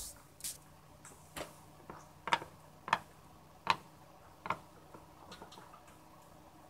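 Plastic Littlest Pet Shop figurine tapped down on a hard tabletop again and again, hopping to act out walking. It makes about seven sharp taps, one every half second or so, the loudest near the middle, then a few faint ticks.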